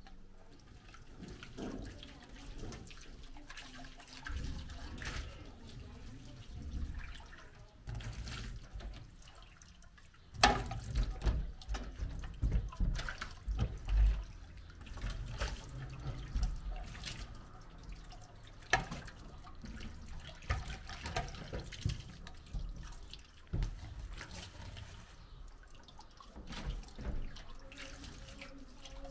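Dishes being washed by hand at a stainless steel kitchen sink: tap water running and splashing over a bowl, with scattered knocks and clatter as dishes are handled in the sink.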